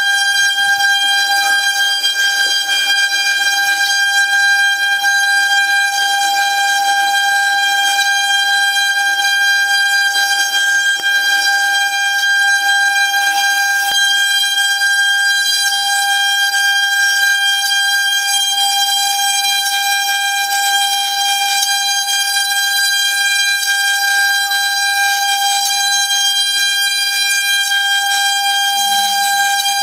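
Eight-spindle CNC engraving router with all eight spindles cutting into fibreboard at once, giving a steady high-pitched whine with several evenly spaced overtones.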